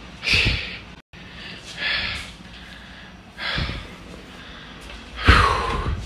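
A man breathing hard and winded after a long, heavy walk: four loud breaths about a second and a half apart, the last the loudest.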